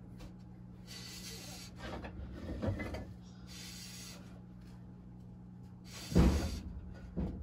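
Steel lathe knife drawn across wet 600-grit sandpaper on a glass plate: about four gritty scraping strokes, each under a second long. A low thump about six seconds in is the loudest sound.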